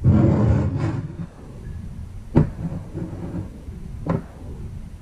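A glass bottle of scotch being handled on a table: a loud rustling burst in the first second, then two sharp knocks about two and a half and four seconds in as glass is set down.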